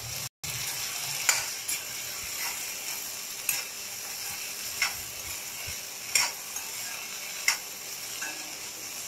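Spatula stirring diced potatoes in a steel kadai, scraping the pan and clacking against it about once every second and a bit over a steady sizzle of frying.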